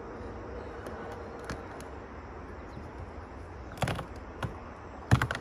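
Short knocks and taps of hands against a rooftop RV air conditioner's plastic shroud and base, over a steady outdoor background noise. There is a faint tap, then two knocks, then a louder quick cluster of knocks near the end.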